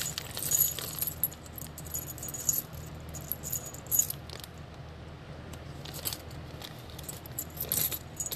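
10 mm round iron beads clinking against one another as a small plastic zip bag of them is shaken and they are tipped into a hand, in several short jingling bursts over a low steady hum.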